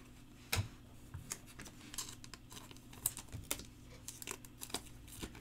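A stack of chrome baseball trading cards being flipped through by hand: light, irregular clicks and slides as each card is moved to the back of the stack.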